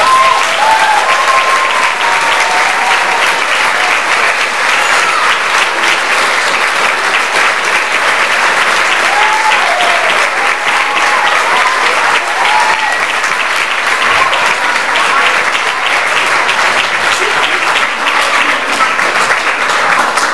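Audience applauding steadily, with scattered shouts and whoops of cheering, then cutting off abruptly at the end.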